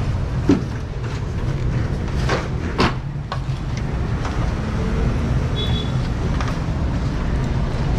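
Bamboo poles knocking and clacking against each other a few times in the first half as bundled poles are gripped and pulled, over a steady low rumble.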